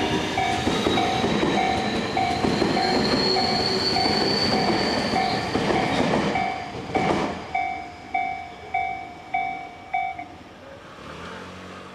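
Japanese railway level crossing's warning bell ringing in steady repeated strikes, a little under two a second, while a train runs over the crossing with wheels clattering and a slowly rising whine. The train noise fades about six seconds in, a single sharp knock comes about seven seconds in, and the bell stops about ten seconds in, leaving a faint low hum.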